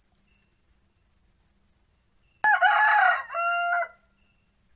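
Rooster crowing once, about two and a half seconds in: a loud call of about a second and a half, its first part bending in pitch, then a short dip and a held final note.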